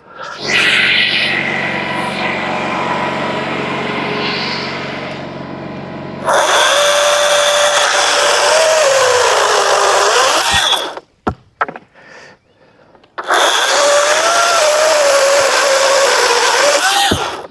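A small engine runs steadily for several seconds. Then a power tool runs in two bursts of about four seconds each, each starting and stopping abruptly, with its whine dropping in pitch near the end of the first burst as it takes load.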